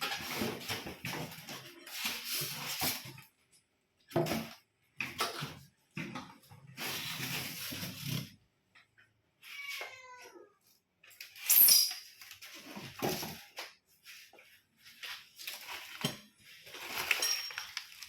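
Bursts of rustling and clatter from packaging and stove parts being handled, starting and stopping every second or two. A short wavering call about ten seconds in, and a sharp louder clatter just after it.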